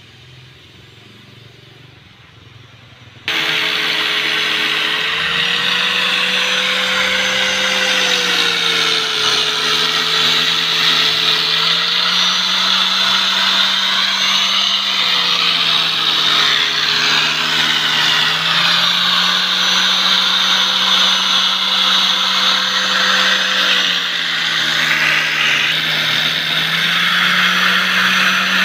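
Electric angle grinder with a sanding disc running against a wooden plank, a loud steady motor whine that dips and recovers in pitch as the disc is pressed into the wood. It cuts in suddenly a few seconds in, after a stretch of quiet outdoor ambience.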